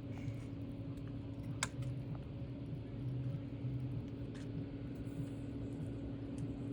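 Boat engine running steadily with a constant low hum. A single sharp click comes about a second and a half in.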